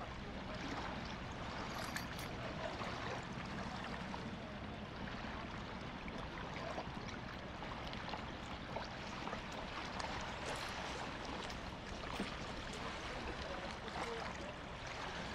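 Water splashing and trickling with many small irregular splashes, over a low steady hum.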